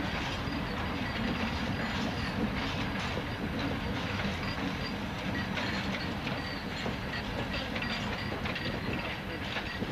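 Freight train rolling past: an ST44 (Soviet-built M62) diesel locomotive pulling away, followed by covered hopper wagons, with a steady rumble of wheels and frequent clacks of wheels over rail joints.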